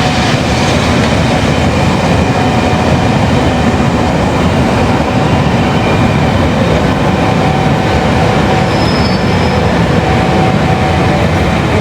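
A train rolling close by at the station: a loud, steady rumble of wheels on rail, with a steady high-pitched tone held over it.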